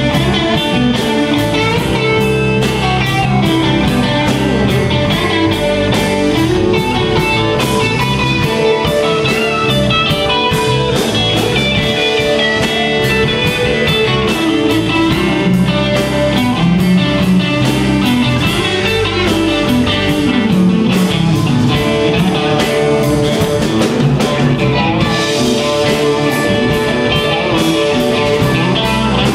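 Live rock band playing, with electric guitar to the fore over bass and a steady drum beat.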